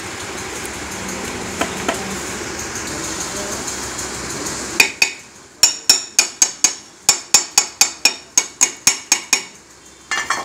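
Hammer striking the end of a scooter engine's crankshaft to seat it in the crankcase. About twenty sharp, ringing metal-on-metal taps at roughly four a second begin about halfway through, and two more come near the end. Before the tapping there is a steady background noise.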